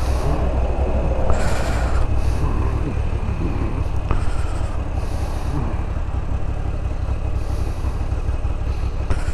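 Moto Guzzi V85TT's air-cooled V-twin engine running as the motorcycle pulls away and rides on: a steady low rumble with a wash of road noise over it.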